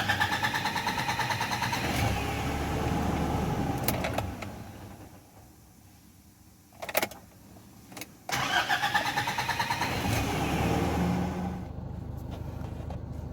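Nissan Navara YD25 diesel engine being started in two attempts. Each attempt is a couple of seconds of rhythmic cranking that runs on into a steadier engine sound and then dies away, with a few seconds of near quiet and a click in between. The engine is hard to start.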